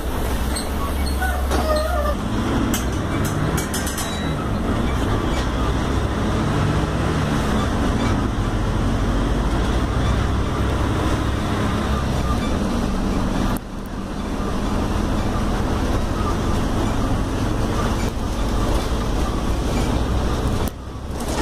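Mercedes-Benz OF-1721L BlueTec 5 city bus running in traffic, with engine and road noise heard from on board; the engine note shifts in pitch as the bus changes speed.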